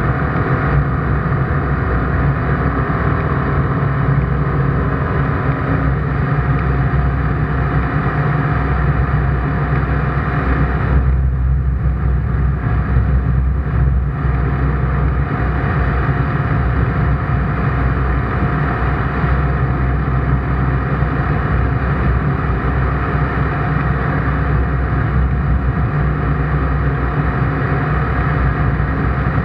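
ICP Bingo ultralight's engine and propeller running at a steady cruise, heard as a loud, even drone inside the cockpit. The higher part of the sound dulls briefly about eleven seconds in, then returns.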